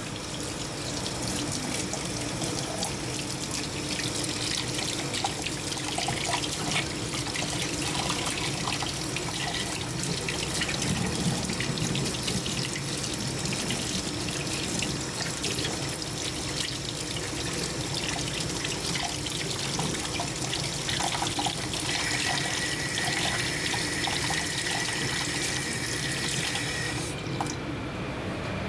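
Kitchen faucet running steadily into a stainless steel sink, the stream splashing over a fish being rinsed and rubbed by hand.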